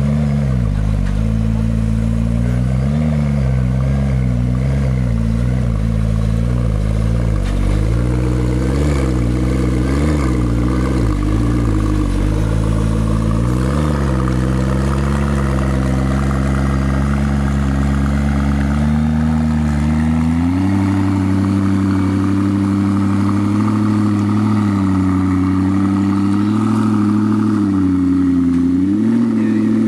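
McLaren P1's twin-turbo V8 running at low revs, with repeated small throttle blips in the first half, then settling into a steadier, slightly higher idle with a couple of brief rises near the end.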